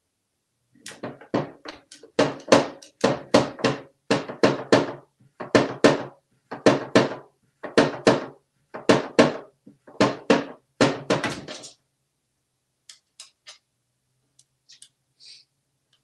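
Motorized flopping fish toy thrashing in a wooden drawer, its body slapping the wood in quick thumps, two or three a second, for about eleven seconds before it stops; a few faint ticks follow.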